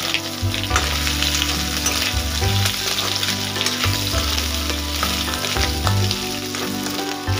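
Vegetarian mock-meat pieces sizzling as they fry in hot oil in a kadai, stirred and turned with a steel ladle, with scattered clicks of the ladle against the pan.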